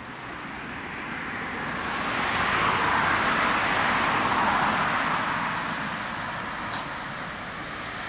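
Car driving past, its tyre noise swelling to a peak about three to four seconds in and then fading.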